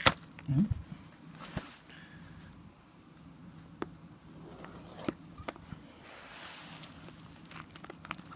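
Fingers picking at and peeling the plastic shrink wrap off a cardboard trading-card box: scattered sharp clicks, the loudest right at the start, and a soft crinkling rustle about six seconds in. A faint steady low hum runs underneath.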